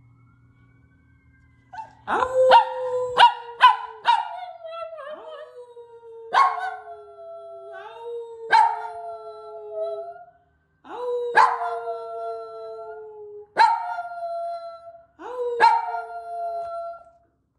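Small chihuahua-type dog howling: a quick run of sharp yips about two seconds in, then a series of long, drawn-out howls, each starting with a sharp yip and sliding slowly down in pitch, with short breaks for breath between them.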